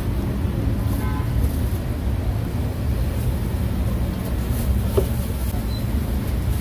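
Steady low rumble of street traffic. A few cleaver chops on a wooden chopping block cut through it, the clearest about five seconds in.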